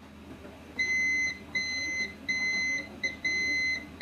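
Digital multimeter's continuity beeper sounding in five short, uneven high beeps as the probe touches a capacitor on the phone board. The beep and the 0.0000 reading signal a dead short to ground on that supply line.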